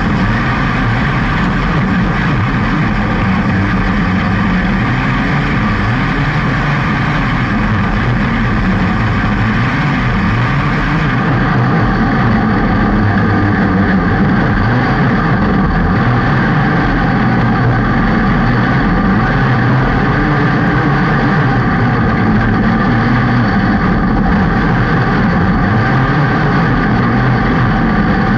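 Small open-class dirt-track race car's engine running hard at racing speed, heard from a camera mounted in the car's roll cage: a loud, steady engine drone that gets slightly louder about a third of the way in.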